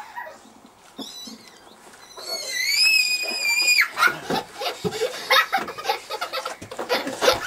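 A single high-pitched squeal, rising and then held for about a second and a half before stopping abruptly, followed by a child's giggling and playful voice sounds.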